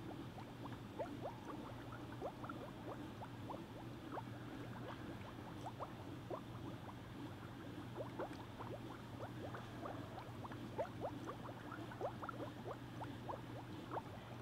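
Water bubbling in a fog-making Halloween cauldron: a dense, irregular run of small bubble pops over a steady low hum.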